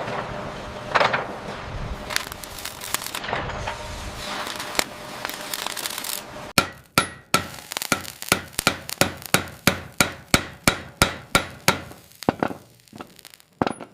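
Metal being hammered: clattering and a few knocks, then about halfway through a steady run of sharp hammer blows, roughly three a second, that stops shortly before the end.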